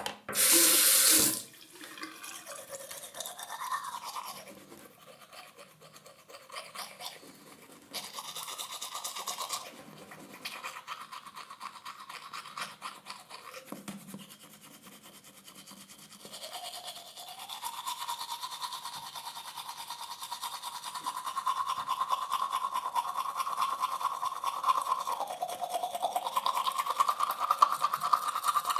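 Teeth being brushed with a toothbrush: quick scrubbing strokes in the mouth, irregular at first, then steadier and louder from about halfway through, with a changing hollow tone as the mouth shifts. A short loud rush of noise comes about a second in.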